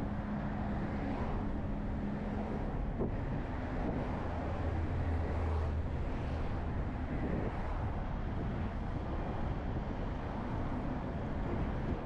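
Bus engine running with steady tyre and road noise while on the move. A low engine drone swells for a couple of seconds around the middle.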